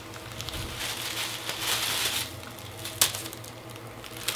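Rustling and crinkling of wig hair as a long wig is handled and turned over in the hands, with a sharp click about three seconds in.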